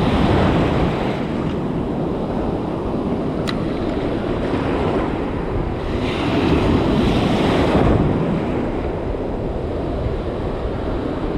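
Ocean surf breaking and washing around the angler's legs, with wind buffeting the microphone. The wash swells loudest around the start and again about six to eight seconds in.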